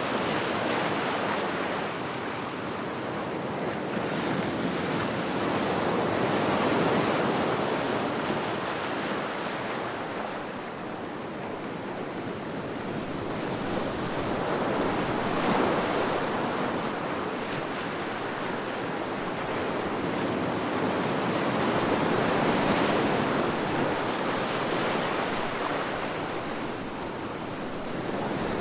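Ocean waves breaking and washing up on a beach: a steady surf hiss that swells and eases about every seven or eight seconds.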